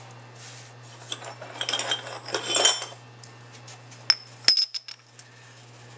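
Handling a Carter mechanical fuel pump's aluminium casting at a bench vise: rustling, then two sharp metal clinks with a brief ringing about four seconds in.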